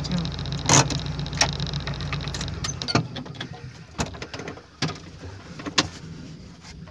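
An off-road vehicle's engine idling with a steady low hum that dies away about two and a half seconds in. Several sharp clicks and knocks from inside the cab are scattered through it.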